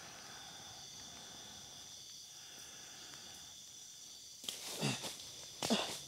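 Crickets and other night insects trilling steadily on several high pitches. Near the end come two louder bursts, a person stirring on dry leaf litter and groaning as he wakes.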